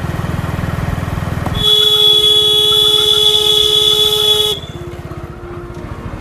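A vehicle horn sounds loudly for about three seconds, a steady blast of two pitches that cuts off suddenly, over the low pulsing rumble of a moving vehicle's engine.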